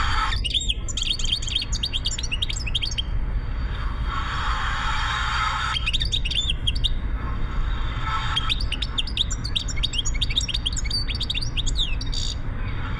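European goldfinch singing in three bouts of rapid, high twittering notes, over the steady low rumble of a car on the road.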